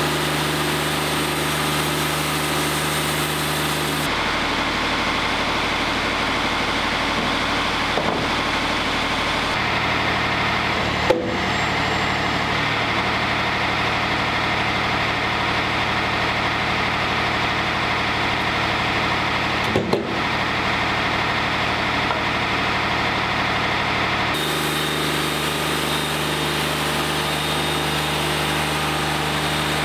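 Wood-Mizer LT40 hydraulic sawmill's diesel engine running steadily, with three brief knocks, the sharpest about eleven seconds in.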